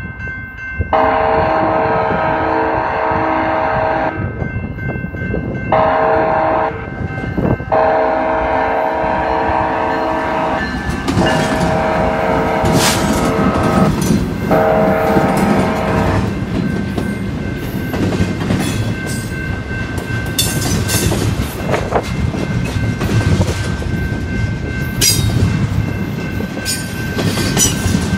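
A GE Dash 9 diesel locomotive sounds its air horn in a series of separate blasts, the crossing warning, for the first half. Its engine and wheels then pass close by, followed by loaded double-stack well cars rumbling and clicking over the rail joints. A grade-crossing bell rings steadily underneath.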